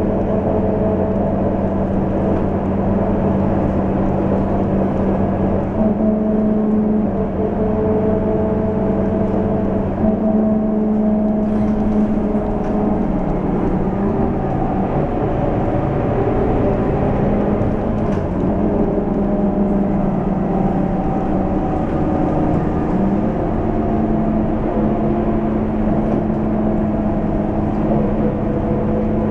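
Scania K230UB city bus cruising, heard from inside the passenger cabin: a steady drone from its diesel engine and drivetrain mixed with road noise. Several held humming tones step up or down in pitch a few times.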